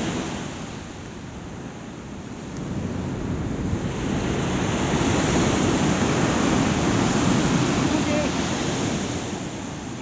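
Ocean surf on the beach: a wave swells in about three to four seconds in and washes steadily, easing off near the end.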